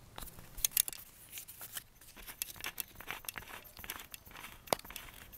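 Irregular light clicks, scrapes and rustles: handling noise as the sundial and its base are moved about by hand.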